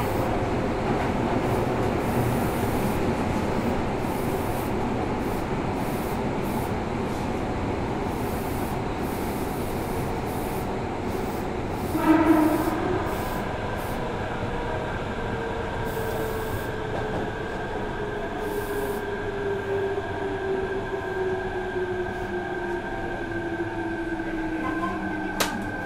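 Onboard running sound of an Osaka Municipal Subway 66 series train with Mitsubishi IGBT-VVVF control: wheel and motor noise, then a brief loud clunk about halfway through. After the clunk the inverter's whine sounds, falling steadily in pitch as the train slows on its brakes toward the next station.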